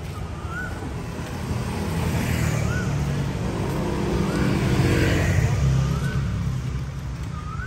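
A motor vehicle passing on the road, its engine growing louder to a peak about five seconds in and then fading away.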